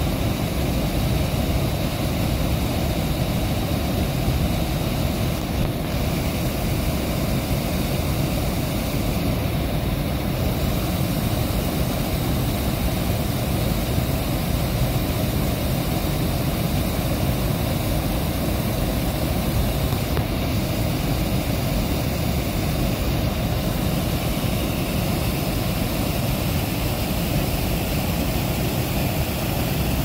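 Water pouring over a small canal weir into churning white water: a steady, unbroken rush, heaviest in the low end.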